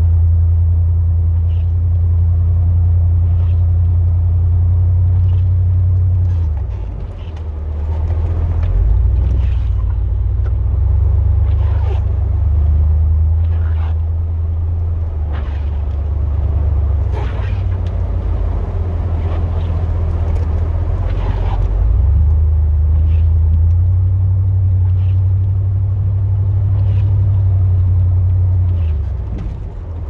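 Chevrolet Silverado plow truck's engine running, a steady low drone whose pitch steps up and down several times as the truck works, with a short drop in level about a quarter of the way in and again near the end. Light clicks and knocks are scattered over it.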